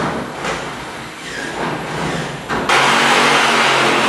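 Electric power tool motor working on the truck's metal roof: it runs unevenly at first, then at full speed as a loud, steady noise from a little under three seconds in.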